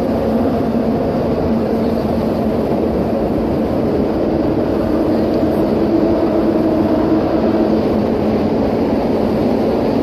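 Car tyres running over the corrugated steel decking of the Ponte 25 de Abril suspension bridge, heard from beneath: a steady hum made of several pitched tones that swell and fade as the traffic passes, over a rumble.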